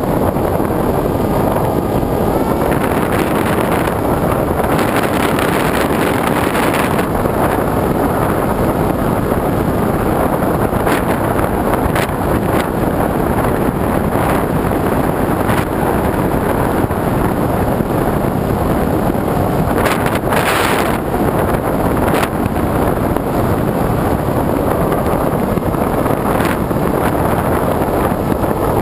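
Steady, loud rush of wind buffeting the microphone of a camera on a small aircraft in low flight, with the aircraft's engine running under it; one brief louder gust about two-thirds of the way in.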